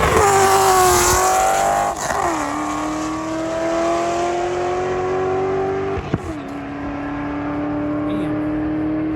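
Modified V8 sport sedan with long-tube headers accelerating hard through the gears: the engine note climbs, drops at an upshift about two seconds in and again about six seconds in, then climbs again as it pulls away.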